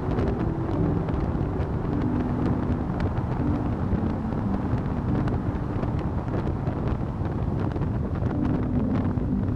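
Motorcycle engine running at road speed, with wind rushing over the microphone while riding through a road tunnel. The engine note shifts in pitch now and then.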